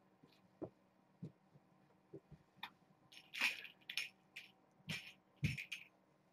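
A person moving about close by: a few soft thumps, scattered light taps and clicks, and bursts of crisp rustling and clatter from small things being handled, loudest in the second half.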